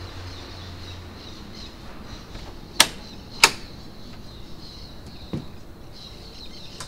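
Two sharp clicks about two-thirds of a second apart, then a fainter one, from the lock or latch of a wooden front door being worked to open it. Birds chirp faintly throughout.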